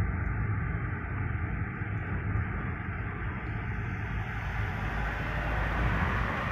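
Steady road and engine noise of a moving car heard from inside the cabin, a low, even rumble with tyre hiss.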